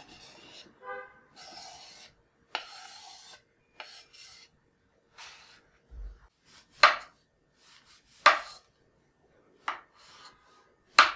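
Diced salami scraped off a wooden cutting board into a ceramic bowl: a few seconds of rubbing and scraping, with a brief ring from the bowl about a second in. Then a knife cutting a mushroom on the wooden board, four sharp knocks of the blade on the board about a second and a half apart, the loudest sounds here.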